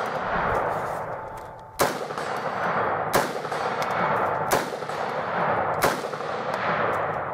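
AR-15-style semi-automatic rifle firing four single shots about a second and a third apart, each crack followed by a long echoing tail.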